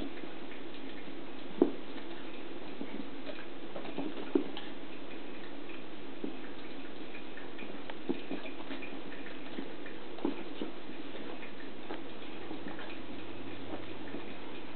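Two dogs, an Australian Shepherd puppy and a small dog, playing and scuffling on carpet: soft scattered taps and knocks, a couple of sharper ones in the first few seconds, over a steady background hiss. There is no barking or growling.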